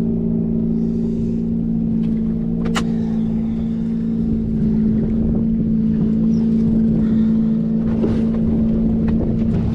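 Motorboat engine running steadily at low speed with a constant hum, and wind rumbling on the microphone. A single sharp click comes about three seconds in.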